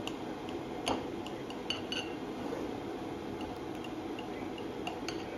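A knife blade clinking against a ceramic plate as it cuts through pancakes: a handful of light clicks in the first two seconds and one more near the end. Under it, the steady rushing of an electric kettle heating water.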